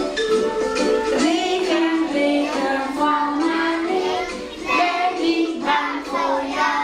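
A group of young children singing a song together, with music.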